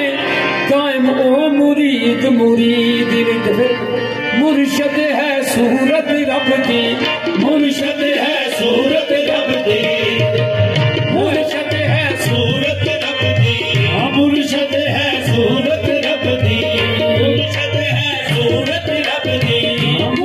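Qawwali music: harmonium melody over a tabla beat, with male voices singing. The tabla's low strokes grow heavier about halfway through.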